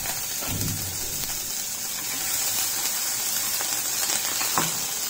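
Green chillies and ginger sizzling in hot oil with cumin and mustard seeds in a non-stick kadhai, a steady hiss as they are stirred with a wooden spatula.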